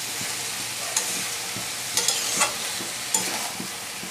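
Banana-flower curry with rice and spices frying in a kadai with a steady sizzle. A spatula stirs it, scraping and knocking against the pan a few times.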